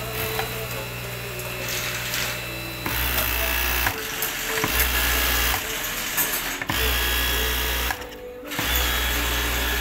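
ARAY V1 high-speed flatlock machine with its direct-drive motor stitching knit fabric. In the second half it runs in short bursts of about a second, stopping and starting several times.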